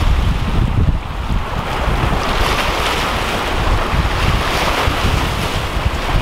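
Strong wind buffeting the microphone in gusts, over choppy water washing and breaking against shoreline rocks.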